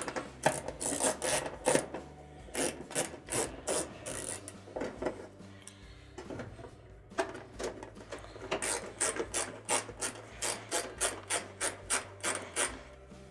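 1/4-inch nut driver backing out the washer's top console screws: quick, evenly spaced rasping strokes, about three a second, in separate runs with a pause of a second or two between them.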